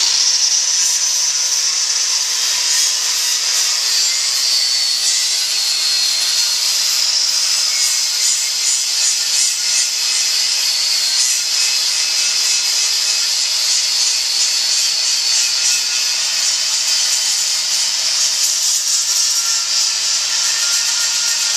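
Angle grinder fitted with a 60-grit flap wheel, sanding down the steel of a truck push bar. It starts abruptly and runs steadily under load, with a high whine over the grinding noise.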